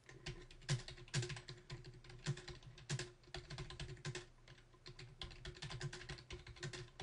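Typing on a computer keyboard: an irregular, quick run of keystrokes as a sentence is typed, over a faint steady hum.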